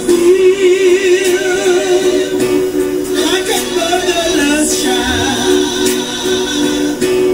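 Live recording of a woman singing a slow spiritual, holding long notes with wide vibrato over a steady sustained note beneath.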